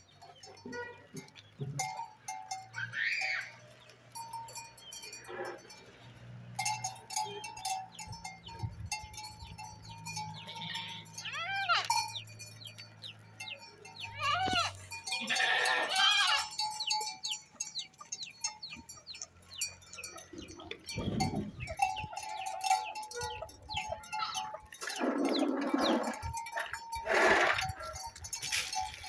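Mixed flock of sheep and goats bleating several times, the loudest calls in the middle and near the end, over the ringing and clinking of bells worn by the animals as they move.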